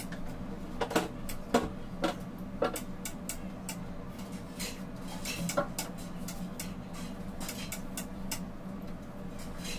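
Light clicks and taps of small things being handled in a kitchen, a cluster of louder ones in the first three seconds and one more past five seconds, over a steady low hum.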